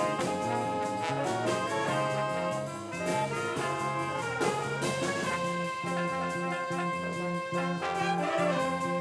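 A band with trumpets and trombones playing an up-tempo, jazzy piece over a steady drum beat.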